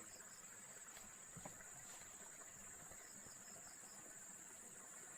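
Faint, steady high-pitched insect trilling, with short chirps that come in quick groups now and then.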